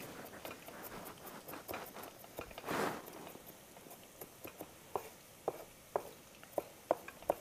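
Chef's knife finely chopping red onion on a plastic cutting board: quick light taps of the blade on the board, with a short louder rush of noise about three seconds in, then more spaced knocks about two a second toward the end.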